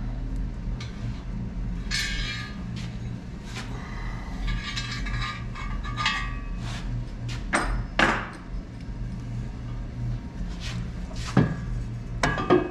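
Steel frame parts being handled during a test fit: scattered metal clanks and knocks with a few short scrapes, the loudest knock about eight seconds in. A steady low hum runs underneath.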